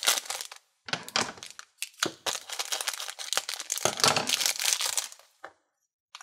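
Clear plastic bag crinkling and rustling in irregular bursts as hands open it and take out the small toy figures inside. It stops about five and a half seconds in.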